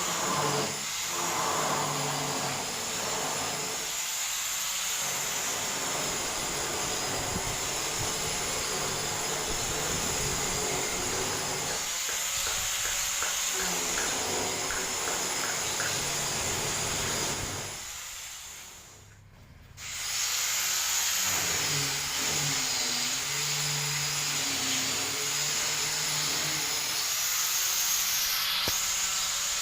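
Steady factory machinery noise, with a high whine that wavers in pitch. It drops away sharply for about two seconds roughly two-thirds of the way through, then returns.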